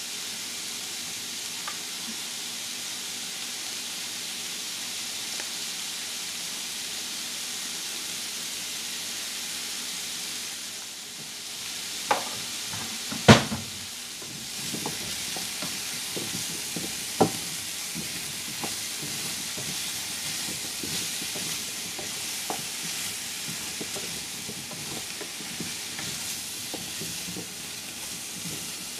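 Butternut squash cubes sizzling steadily in a frying pan. About halfway through, a silicone spatula starts stirring them, with a few sharp knocks against the pan and then lighter scraping clicks.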